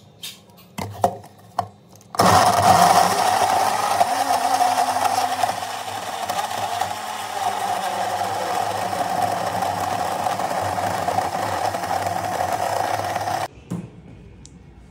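A few clicks, then an electric blender runs steadily for about eleven seconds, blending a protein shake, and cuts off suddenly near the end.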